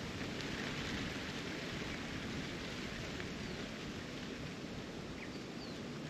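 Steady wind noise buffeting the microphone, with a few faint, short bird calls.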